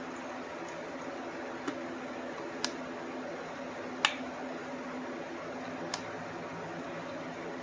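Steady hum of a shop fan running, with four sharp clicks or taps from tools working on a chainsaw's clutch side. The loudest comes about four seconds in.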